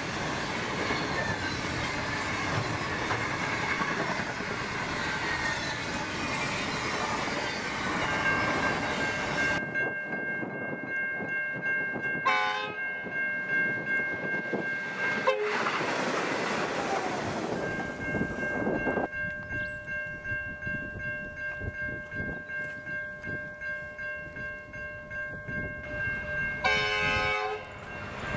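The last container wagons of a freight train rumble past, clattering over the rails. Then a level crossing's bells ring with a steady, even pulse while a V/Line Sprinter diesel railcar approaches and blows its horn, about twelve seconds in and again near the end.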